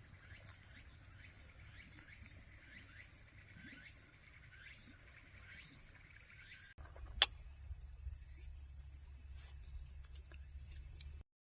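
Campfire crackling faintly with scattered small pops. About seven seconds in it cuts abruptly to a steady high hiss with one sharp click, and the sound stops shortly before the end.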